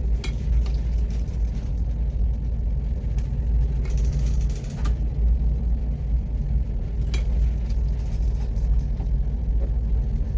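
A heavy, steady low rumble throughout, with a few brief clicks and rattles on top.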